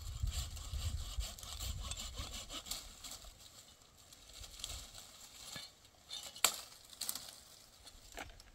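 Dry wheat stalks rasping and rustling as they are gathered and cut by hand, dense for the first few seconds over a low rumble. After that come a few sharp snaps about a second apart.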